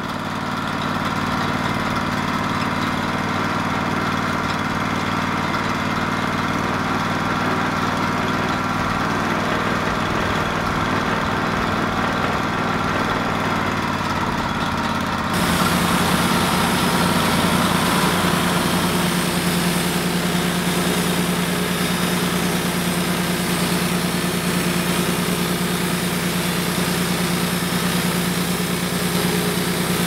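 Engine idling steadily. About halfway through the sound cuts abruptly to a different, deeper engine note that runs on steadily.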